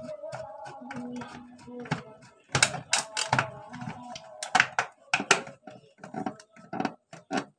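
Irregular plastic clicks and knocks as a plastic switchboard plate is pushed and shifted into place on its wall box, with the loudest knocks about three seconds in and again about five seconds in.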